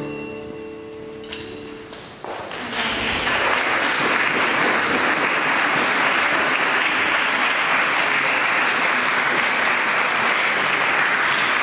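The last chord of the song fading away in a reverberant church, then audience applause starting about two seconds in and continuing steadily.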